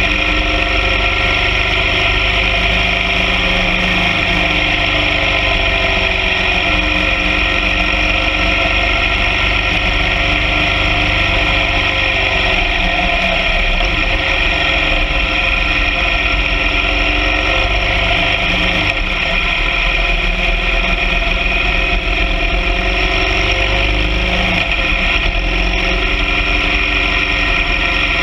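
BMW R 1200 GS Adventure sidecar outfit's boxer-twin engine running steadily while under way.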